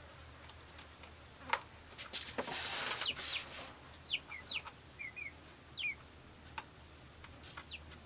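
A bird chirping: a string of short, falling chirps, several in pairs, with a brief rustle and a few clicks about two to three seconds in.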